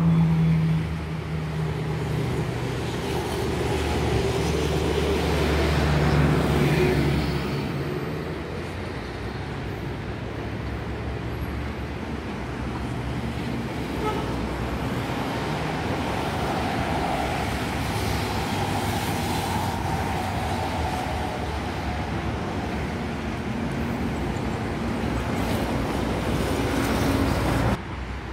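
Road traffic with vehicle engines running past. A heavy engine's low drone is loudest for the first several seconds, then it settles into a steady wash of traffic noise that drops off suddenly near the end.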